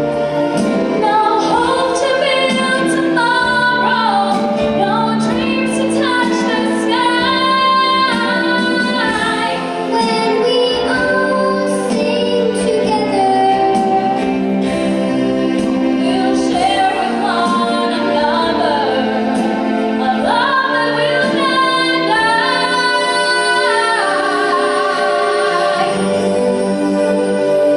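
Female voices singing a song over steady instrumental backing, the melody moving continuously with sustained bass notes beneath.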